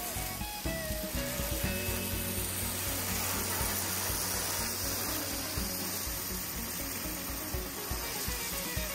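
Jet of water spraying and spattering on the wooden plank floor of a pickup bed, a steady hiss, with background music.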